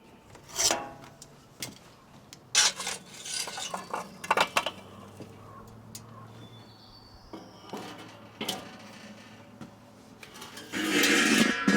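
Metal clinks, scrapes and rattles of a charcoal grill and its charcoal being handled: several sharp clinks in the first few seconds, then a longer, louder rattling rush near the end.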